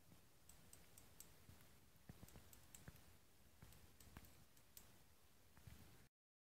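Near silence: faint, irregular clicks and ticks, a few a second, over a quiet background hiss, cutting off to dead silence about six seconds in.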